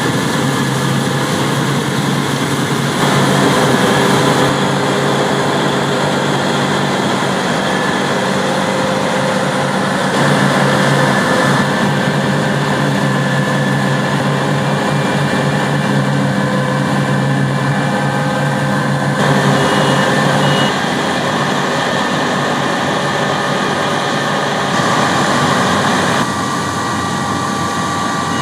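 Heavy harvest machinery running steadily: a combine harvester and tractors at work in a wheat field. The engine and machine sound jumps abruptly to a different character every few seconds.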